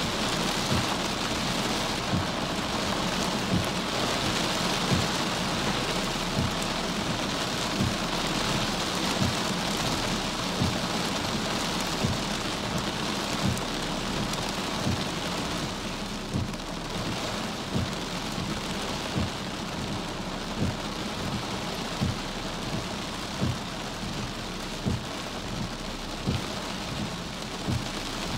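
Heavy rain beating steadily on a car's windshield and roof, heard from inside the car as a dense hiss. A soft low thump repeats evenly about every three quarters of a second.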